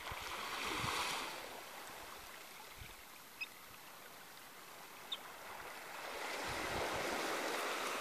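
Small waves washing in and sliding back over sand and seaweed at the water's edge, swelling about a second in and again from about six seconds. Two brief high peeps from small shorebirds come in between.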